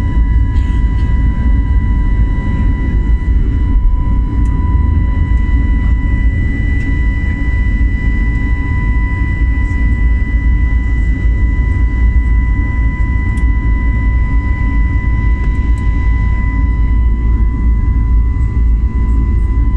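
Airliner engine and airflow noise heard inside the passenger cabin during the climb after takeoff: a loud, steady low rumble with a steady high whine over it.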